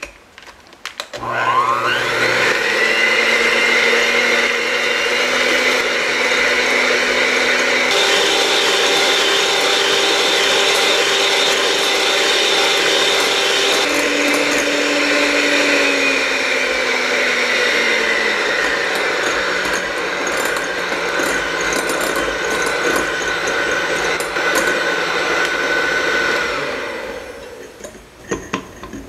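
Electric hand mixer running with its wire beaters in a glass bowl, whisking eggs and sugar into a froth. The motor starts about a second in and its pitch steps up and down several times as the speed is changed, then it stops near the end, followed by a few light knocks.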